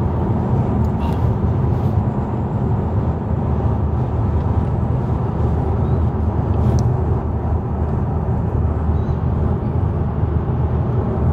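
Steady low rumble of tyre and engine noise heard inside the cabin of a car driving on a highway.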